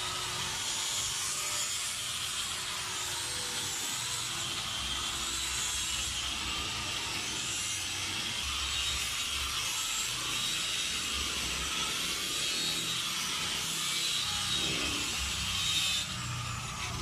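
Hand-held angle polisher spinning a 3,000-grit diamond polishing pad against the wet, bullnosed edge of a white granite countertop: a steady whirring, rubbing grind that stops near the end.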